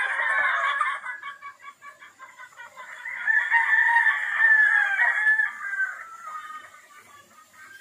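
Roosters crowing, with hens clucking in between. One long crow starts about three seconds in and lasts some three seconds.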